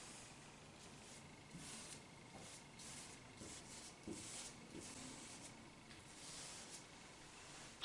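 Faint rubbing strokes of a marker pen on a large sketchboard as letters are written, several short strokes with pauses between, ending with a sharp tap.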